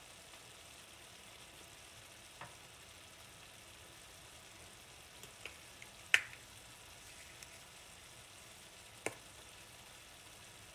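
Bacon, onion and tomato sauce sizzling gently in a skillet, with a few sharp pops and spatters, the loudest about six seconds in.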